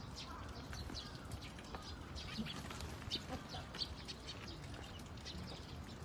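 Small birds chirping: many short, high chirps scattered irregularly, over a steady low rumble.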